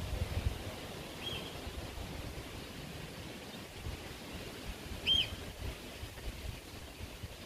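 Outdoor background with wind rumbling on the microphone, and a bird giving a short chirp twice, about a second in and again about five seconds in, the second one louder.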